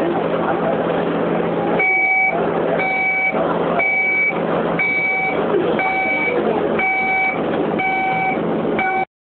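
Train door warning beeping, a short pitched beep about once a second, eight times, over the steady hum of the carriage and passengers' chatter. The audio cuts out abruptly near the end.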